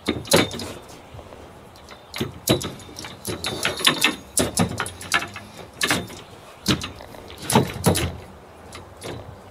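Metal tube frame of a Kelsyus folding hammock stand clanking and clicking as it is unfolded and its legs knock on a wooden deck, about a dozen sharp knocks at irregular intervals.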